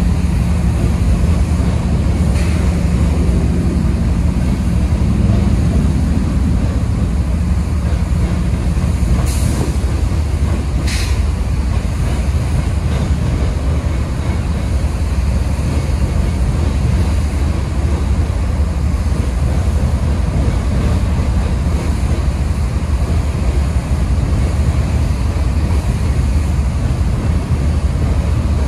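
Freight train of hopper cars rolling past: a steady low rumble of wheels on rail, with a few brief high squeaks about 2, 9 and 11 seconds in.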